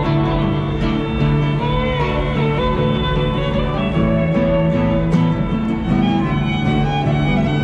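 A violin and an acoustic guitar playing a tune together, the violin carrying the melody in wavering held notes over the strummed guitar.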